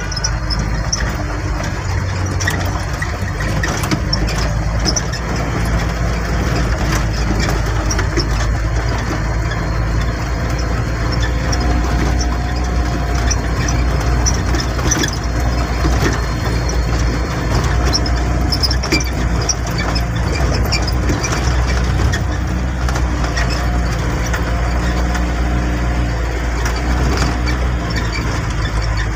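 Truck engine running steadily while driving over a rough, stony dirt track, heard from inside the cab, with frequent knocks and rattles from the jolting ride.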